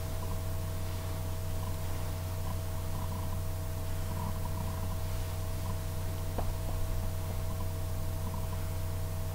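Steady low electrical hum with a faint even hiss: room tone.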